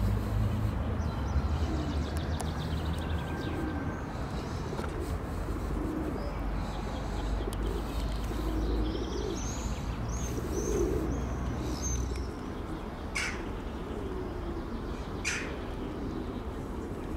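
Pigeons cooing over and over, every two or three seconds, with small birds chirping for a couple of seconds about halfway through. A low steady rumble underneath stops about twelve seconds in, and two short sharp sounds follow near the end.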